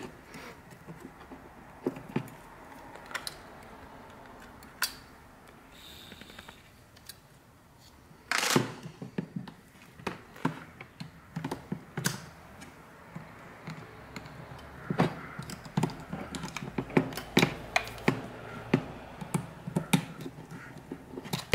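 The plastic housing of a partly disassembled Rode NT-USB Mini microphone is being handled, giving scattered clicks, taps and knocks. A louder clatter comes about eight seconds in, and the clicking is quicker over the last several seconds.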